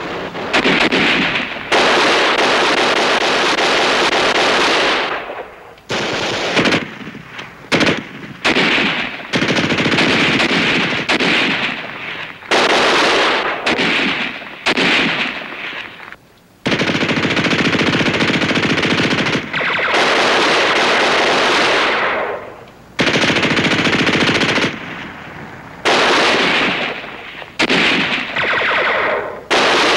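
Machine-gun fire in repeated long bursts of several seconds each, cutting off sharply, broken by brief pauses and a few shorter bursts.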